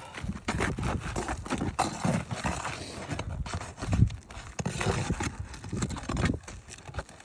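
Footsteps and scuffing on a shingled roof: irregular knocks and scrapes, with one heavier thump about four seconds in.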